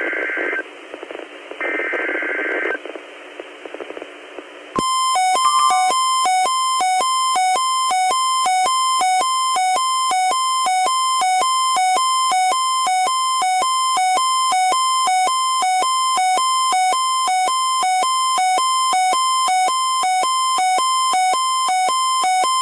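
Weather radio emergency alert: two short electronic data bursts of the SAME header, then about five seconds in a loud electronic alarm tone near 1050 Hz starts and holds, with a lower note pulsing at an even rhythm. This is the warning alert tone that comes before a severe thunderstorm warning message.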